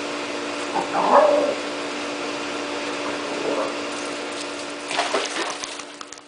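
Dog whimpering in short, high whines, the loudest about a second in and fainter ones later, over a steady low hum.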